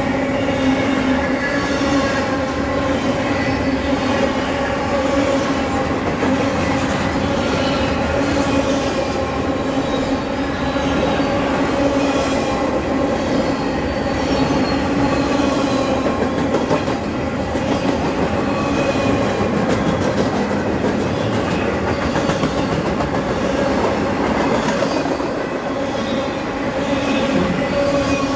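Double-stack intermodal freight train's well cars rolling past close by: a continuous rumble and rattle of steel wheels on the rails, with a steady pitched hum running through it.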